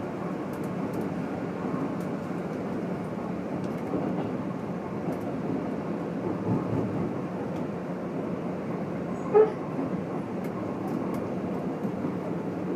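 Keikyu New 1000 series electric train running, heard from inside motor car Deha 1449, which has MB-5121-A traction motors and a Toyo Denki IGBT VVVF inverter: a steady rumble of wheels and motors. A brief sharp, pitched sound comes about nine seconds in.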